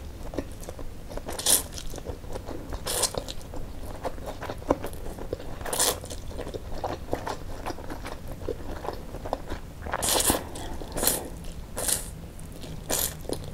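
Close-miked eating of spicy fried noodles with chopsticks: about seven short, hissy slurps as strands are drawn into the mouth, the last four coming quickly near the end, with wet chewing and small mouth clicks in between.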